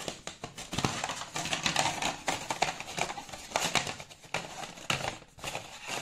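A rigid plastic packaging tray being handled and shifted as a neckband earphone is freed from it: a quick, irregular run of hard plastic clicks and taps.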